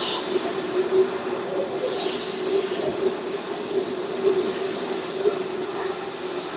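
Oxy-propane cutting torch hissing steadily as it cuts through a steel axle housing, with a constant low tone under the hiss.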